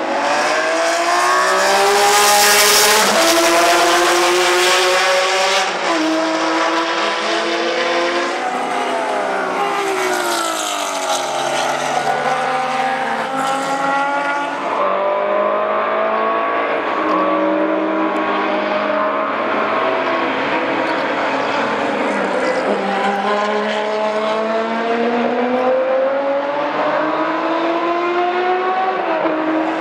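BMW M1 Procar's M88/1 straight-six racing engine at full throttle as the cars pass on track, its pitch climbing under acceleration and dropping at each gear change, several times over.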